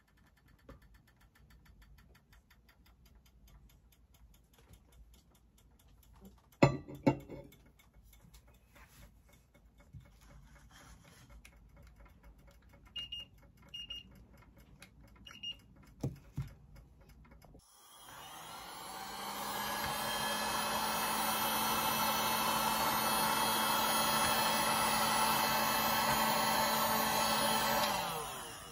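A handheld electric heat gun switches on about two-thirds of the way in and blows steadily with a fan whir and a low hum, then cuts off just before the end. Earlier there are a couple of sharp knocks on the table and three short high beeps from an infrared thermometer aimed at the wax.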